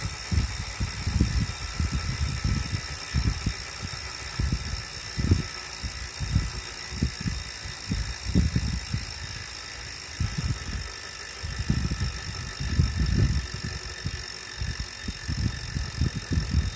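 Wahoo indoor bike trainer running under pedalling, with uneven low knocking and rumbling over a steady high whine. The noise persists even after the trainer has been cleaned and warmed up for half an hour.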